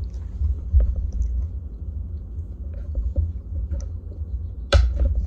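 A glass chess piece set down on a wooden chessboard, giving one sharp click near the end, with a few fainter knocks before it. A steady low rumble runs underneath.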